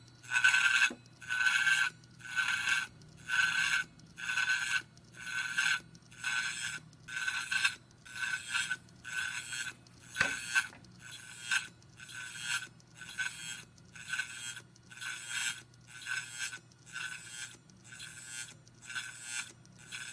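Faulty Hitachi Ultrastar 500 GB hard drive making a repeated scraping, about one rasping stroke a second like a knife being sharpened, with a single sharp knock about halfway through. The spinning platter seems to rub inside the drive, which the owner believes was damaged in shipping.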